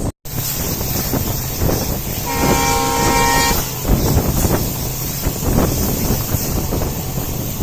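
Diesel locomotive horn, the WDP4D hauling the train, sounding one chord-like blast of a little over a second, over the steady rumble and clatter of the train running.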